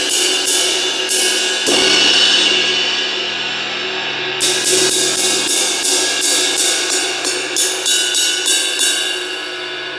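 Zildjian 20-inch K Custom Dark Ride cymbal being played in a sound test after a crack repair: a steady run of ride strikes, a heavier hit about two seconds in that washes out and decays, then a quicker run of strikes from the middle that stops shortly before the end, leaving the cymbal ringing.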